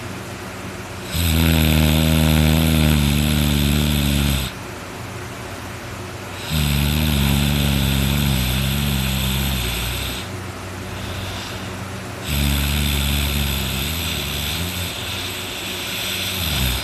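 A sleeping person snoring very loudly: three long snores of three to four seconds each, starting about five to six seconds apart.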